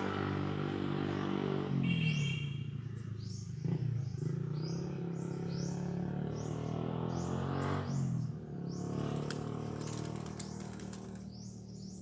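A white-eared brown dove caught in the trap, beating its wings in a clattering flurry about nine to eleven seconds in, over short high bird chirps repeating about twice a second.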